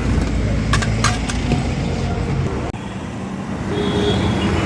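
Road traffic going past, with a steady low engine rumble. A few sharp clicks come about a second in.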